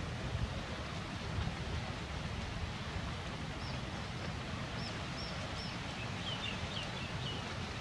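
Steady outdoor wind and ambient noise, with a few faint, short high chirps from a small animal or bird in the middle.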